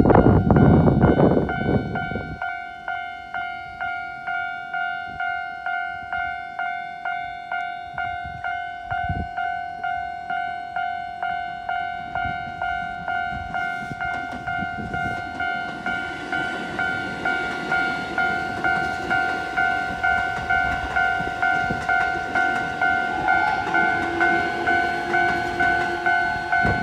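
Japanese level-crossing alarm bell ringing a steady two-tone ding, just under two strikes a second, while red Keikyu Line electric trains pass. A train rushes by loudly in the first two seconds, and another approaches from about halfway and runs past, its noise growing louder toward the end.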